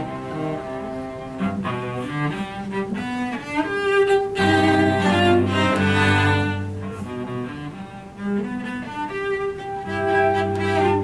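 A quartet of four cellos playing together, several bowed lines layered in sustained chords. The music swells louder a few seconds in, eases off briefly past the middle, then builds again toward the end.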